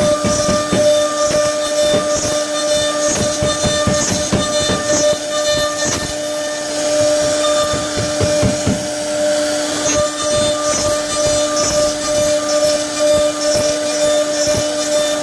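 CNC router spindle running with a steady whine as its router bit cuts into a wooden panel, with an irregular chatter of the bit biting the wood.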